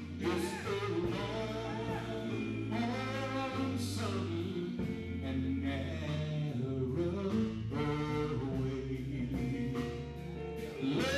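Male gospel quartet singing a slow song live in harmony, with electric guitar accompaniment and sustained low bass notes underneath.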